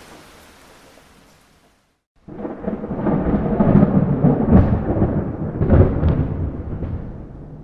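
Steady rain hiss fades away to a moment of silence. About two seconds in, a loud thunderclap breaks in suddenly and rolls on as a deep rumble, with two sharper cracks in the middle, before dying away toward the end.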